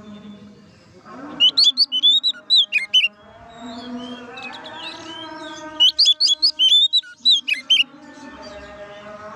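Oriental magpie-robin singing loud, clear 'ngeplong' song: two bursts of quick, sweeping whistled notes, about a second in and again near six seconds in.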